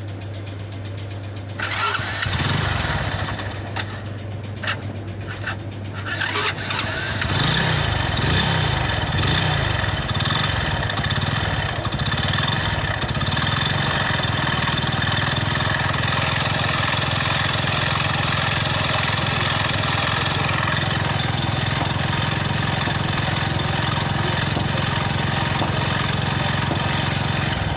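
Hero Splendor motorcycle's single-cylinder four-stroke engine starting about two seconds in, revved briefly, then running steadily. The engine noise comes from a worn crankshaft with broken bearings.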